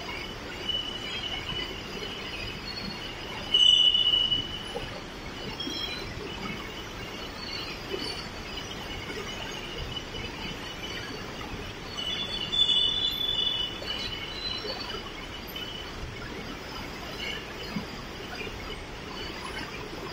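Steady running noise of factory packing-line machinery, with intermittent high-pitched squeals. The two loudest squeals come about three and a half seconds in and about twelve seconds in, each lasting about a second.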